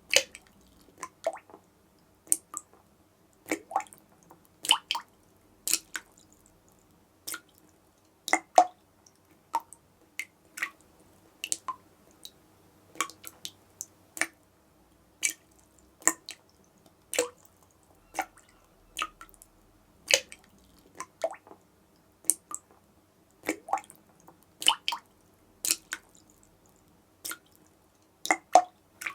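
Tap dripping: single water drops land one after another at an uneven pace, about one or two a second, some in quick pairs, each a short, sharp drip.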